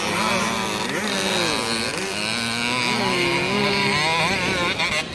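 Several small youth dirt bike engines running on a race course, their pitch rising and falling and overlapping as the riders throttle on and off and shift.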